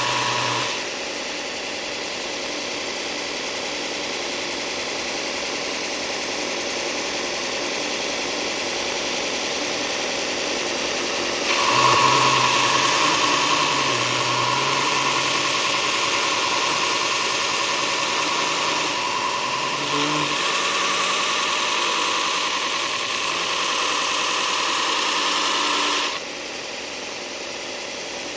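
Power sander running steadily against a workpiece. The sound grows louder and harsher about 11 seconds in and drops back near the end.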